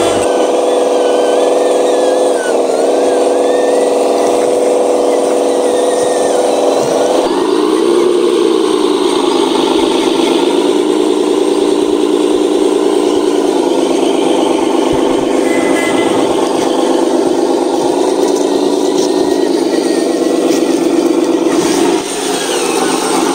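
Miniature RC truck's motor and drivetrain running steadily under load, its pitch dipping and rising again about seven to nine seconds in and shifting lower around fourteen seconds.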